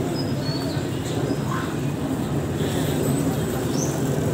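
Street ambience: a steady low engine hum with faint voices and a few high chirps.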